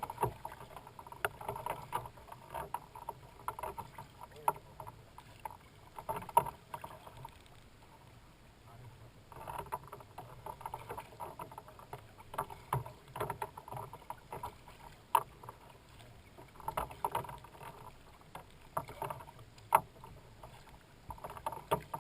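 Kayak paddling: water splashing and dripping off the paddle blades, with sharp knocks, in spells every few seconds and a quieter pause about a third of the way through.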